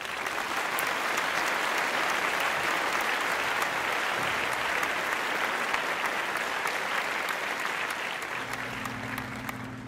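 Applause, a dense clapping that starts abruptly and eases off slightly near the end.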